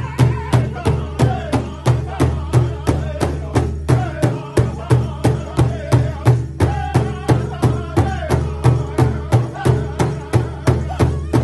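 Powwow drum group striking a large hide-covered drum together in a steady, even beat of about three strokes a second, with men singing over it.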